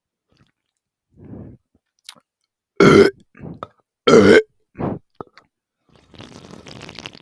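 A person burping twice, loud and pitched, about a second apart near the middle, after gulping carbonated Coca-Cola, with softer short throat and mouth sounds around the burps.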